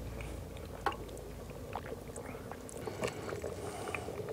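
A pot of stew simmering on an electric hot plate, a low steady bubbling, with a few faint clicks of a spoon and glass spice jars.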